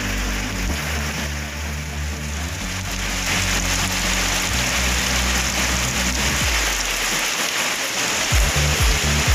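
Heavy rain falling steadily, with runoff pouring off a roof edge and splashing into a tarpaulin fish pond. Background music with sustained low notes runs under it and fades about seven seconds in; low thumps come in near the end.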